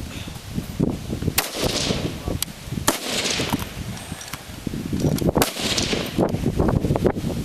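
AR-15 rifle shots, about three, spaced a second and a half to two and a half seconds apart, each sharp crack trailing off in a short echo.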